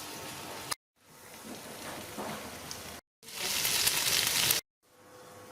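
Sausages sizzling as they roast, a steady frying hiss that breaks off abruptly into silence twice, loudest about three to four and a half seconds in.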